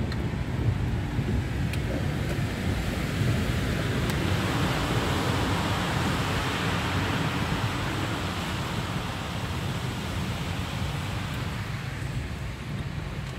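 A car driving through deep floodwater, heard from inside the cabin: a steady low rumble, with water hissing and sloshing off the tyres and against the body from about four seconds in until near the end.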